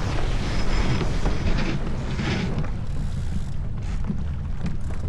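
Wind buffeting the microphone with a low rumble, over the rushing hiss of water along the hull of a J/24 keelboat under sail; the hiss is strongest in the first half.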